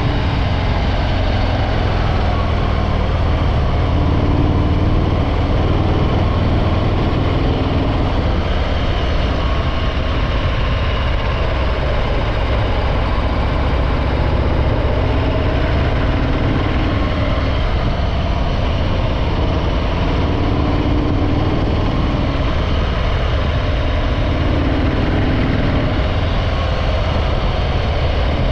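Harley-Davidson Breakout 114's Milwaukee-Eight 114 V-twin running steadily through its stock exhaust, holding much the same engine speed throughout.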